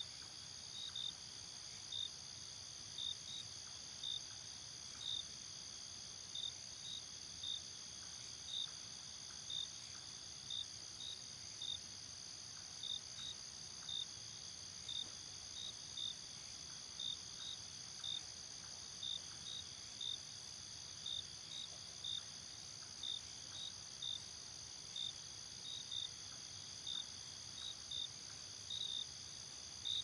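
Insect chorus: a steady high-pitched trill under crickets chirping, short chirps repeating irregularly about one to two times a second.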